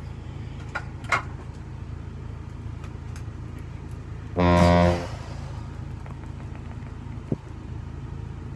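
A fan running with a steady low hum, so loud. A few light clicks of handling, and about halfway through a short, loud buzzing tone of under a second.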